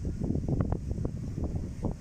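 Gusty wind of a thunderstorm front buffeting the microphone: a low rumble with frequent short crackles.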